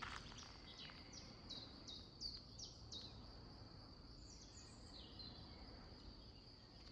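A songbird singing faintly: two phrases of short whistled notes, each note sliding down in pitch, the first run about a second in and the second a little past the middle. A faint steady high tone runs underneath.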